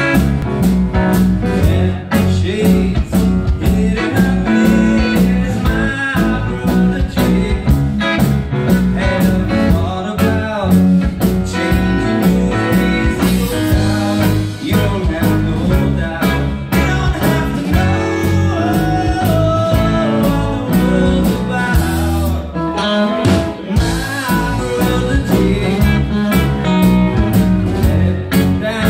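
Live rock band playing a bluesy song: electric guitar, electric bass and drum kit keeping a steady beat, with a male voice singing at times.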